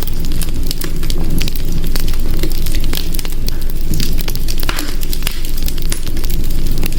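Wood fire crackling in a hearth: a steady low rumble of flames with many sharp pops and snaps of burning wood scattered throughout.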